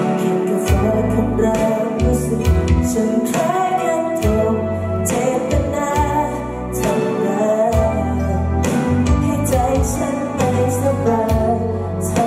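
Live pop band performance: a male lead singer sings into a handheld microphone over the band, with guitar and recurring low bass notes.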